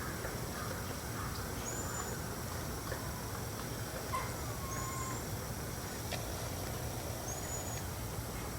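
Unidentified animal call: a short high chirp repeated about every two and a half to three seconds, with one lower, longer falling call just after four seconds. A steady high-pitched tone and low background noise run underneath.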